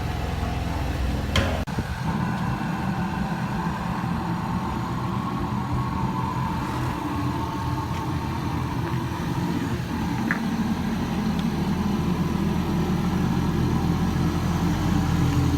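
Car engine running with a steady low hum that grows slightly louder in the second half, and a single click about a second and a half in.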